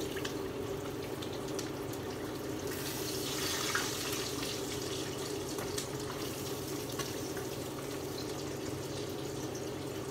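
Food frying in a pan of hot oil: a steady sizzle with scattered pops and crackles, swelling louder for a moment about three seconds in, over a steady low hum.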